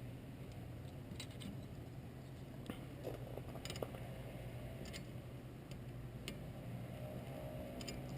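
Faint scattered clicks and taps of a metal slide plate and its fittings being handled and set in place, about nine in all, over a steady low hum.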